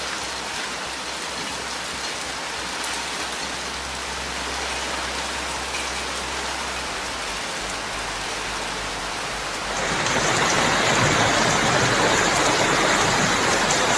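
Heavy rain and water splashing on a flooded road, an even hiss. About ten seconds in it jumps louder to the rush of fast-flowing floodwater in a street.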